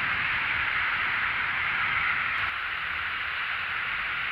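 Rain falling, a steady hiss.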